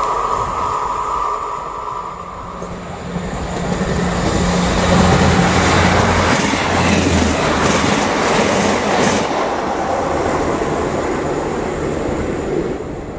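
Great Western Railway Class 158 diesel multiple unit passing close by: its engine drone and wheel noise on the rails build up, are loudest about five to nine seconds in, and drop away near the end. A high steady ring sounds in the first two seconds or so.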